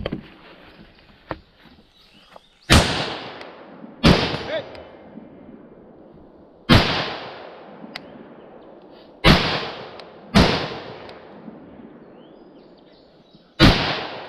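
An M4-clone rifle firing six single aimed shots, unevenly spaced one to three seconds apart. Each shot is a sharp crack that trails off in echo.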